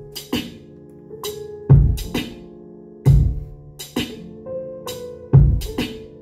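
Hip-hop beat playing back from a Maschine Studio: a sampled melodic loop of held pitched notes under a programmed drum pattern of heavy kicks, snares and hi-hats, looping at a slow tempo.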